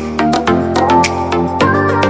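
Background music with a steady beat and plucked or keyed melodic notes.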